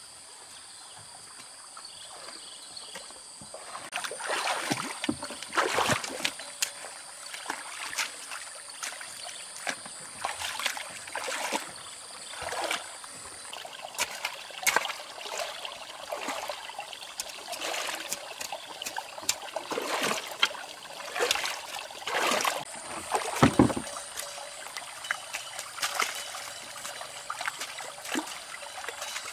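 Shallow stream water splashing and sloshing irregularly as a person wades barefoot through it and works in the water, over a steady trickle of flowing water. Quieter for the first few seconds; one louder splash about two-thirds of the way through.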